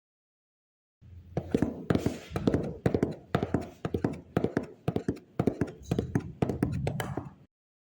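A quick, irregular run of taps and knocks, several a second, starting about a second in and stopping shortly before the end.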